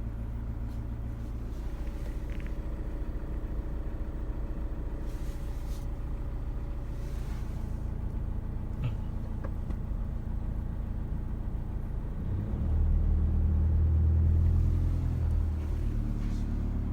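Toyota Hiace KDH200 van running, with a steady low rumble. About twelve seconds in, the rumble grows louder for roughly three seconds, then eases back.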